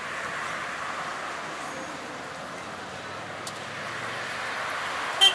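Steady road traffic noise from cars passing alongside, with one sharp, brief click near the end.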